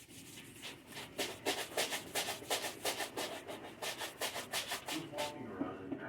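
A cloth or sponge scrubbing a fridge surface in quick back-and-forth strokes, several a second.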